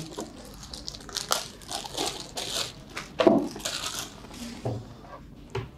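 Thin plastic bag crinkling and rustling in irregular bursts as a power cord is pulled out of it.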